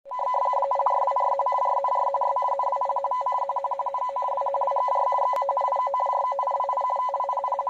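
Radioteletype (RTTY) data signal from the German Weather Service's broadcast on 10100.8 kHz, heard through an ATS-20 receiver in USB: two tones about 450 Hz apart alternating rapidly in a continuous warble. A brief click about five and a half seconds in.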